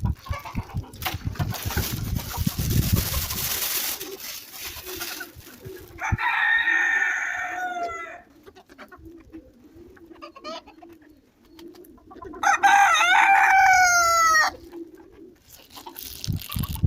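A rooster crowing twice, each crow a long call about six seconds apart, the second louder. A rumbling noise fills the first few seconds.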